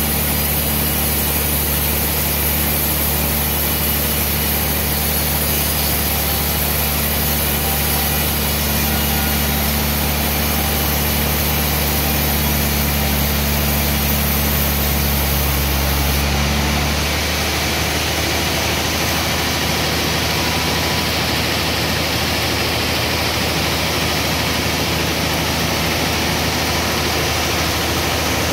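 Band sawmill running steadily while sawing a large trembesi (rain tree) log. A little over halfway through, the low hum drops out and a higher hiss takes over.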